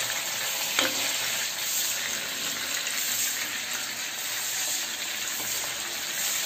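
Masala-coated sailfish pieces frying in hot oil in a non-stick pan: a steady, dense sizzle with one sharp click about a second in.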